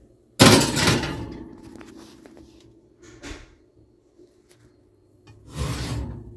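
Glass baking dish and metal oven rack clattering as the dish goes into the oven: a sharp, loud clang about half a second in that rings away over a second or so, then a second, longer rattle near the end as the rack is handled.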